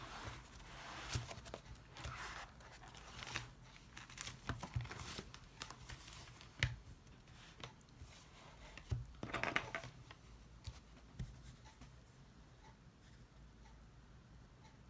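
Faint handling sounds: scattered taps and clicks with brief rustling, tearing swishes, busiest near the start and again around nine seconds in, then dying down.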